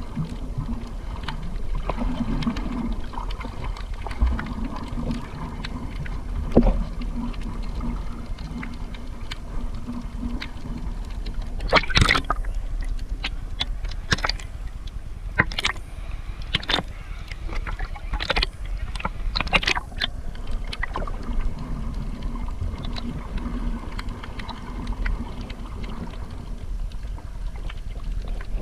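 A boat running on the sea: a steady low engine hum throughout, with a run of sharp knocks about twelve to twenty seconds in.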